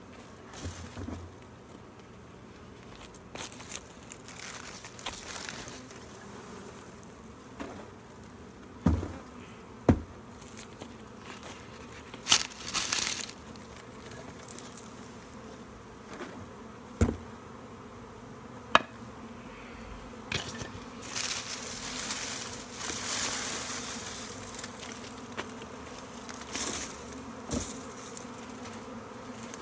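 Honeybee swarm buzzing steadily, broken by a few sharp knocks and, later, bursts of rustling as the cluster is handled.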